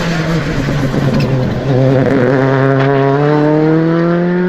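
Rally car engine accelerating hard. Its pitch dips about a second in, then climbs steadily and gets louder.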